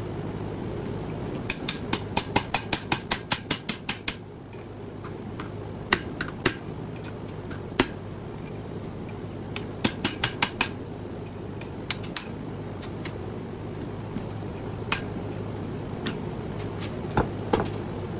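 Hand hammer striking metal on metal as it drives a tool against the bearing on a large electric motor's rotor shaft to knock the bearing off. First comes a quick run of about a dozen ringing blows, about four a second, then scattered single blows and short bursts of several.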